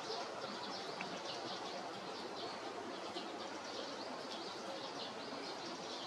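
Small songbirds chirping, many short high notes coming several times a second, over a steady background hiss.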